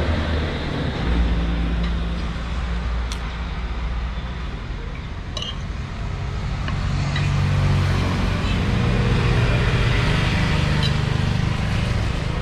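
Road traffic: vehicle engines running and passing, a low hum that rises and falls. A couple of light clicks come about three and five seconds in.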